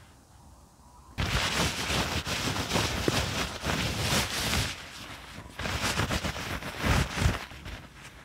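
A paper towel is rubbed hard across a wire grill grate to oil it, making a dense scratchy rasping over the wires. It comes in two bouts: the first starts about a second in and runs to nearly five seconds, and the second runs from just under six seconds to about seven and a half.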